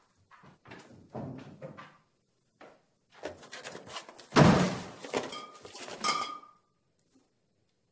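Footsteps on a hard floor, then a heavy wooden door slammed shut about four and a half seconds in, with knocking and rattling around it and a short ringing rattle near the end.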